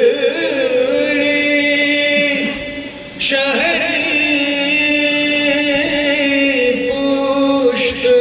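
A man singing a marsiya, the Urdu elegy recited in Muharram, in long held melodic lines. A short break for breath comes about three seconds in before the next phrase.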